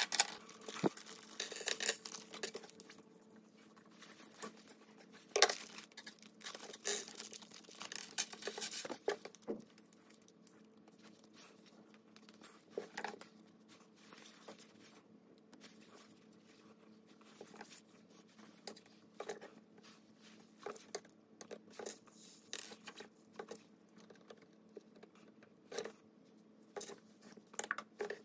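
Irregular clicks and light knocks of carbon-fibre tubes and plastic frame clamps being handled, fitted together and set down on a wooden desk, in scattered clusters over a faint steady hum.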